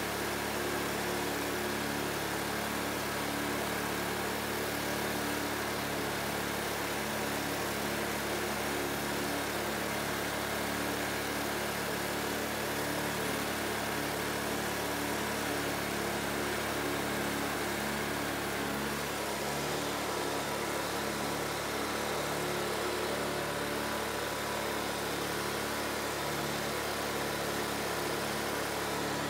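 Whites ride-on lawn mower's engine running at a steady, unchanging speed as the mower drives over grass.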